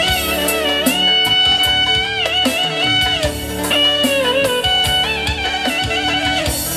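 Live instrumental Romani party music: a clarinet and electric guitar trading an ornamented, bending lead melody over keyboard, bass and hand-drum beats.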